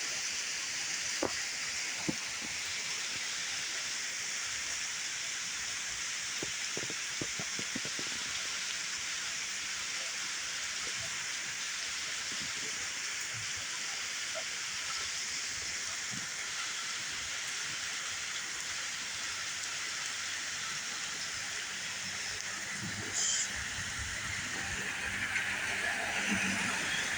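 Steady rain falling, with scattered heavier drops from the overhanging tree landing close by. Near the end a car approaches, its engine and tyre noise growing louder.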